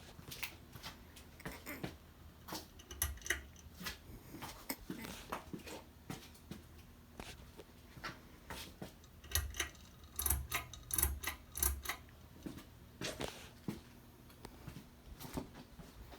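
Faint low hum of ceiling fans running, with many irregular light clicks and taps throughout. The clicks come thickest with a few low thumps around the middle.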